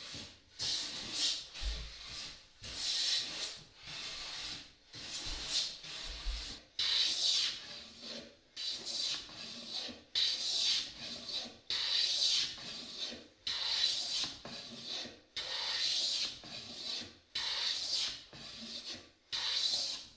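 Steel hand plane pushed along a rough white oak board, taking shavings in repeated strokes about once a second, each stroke a rasping swish.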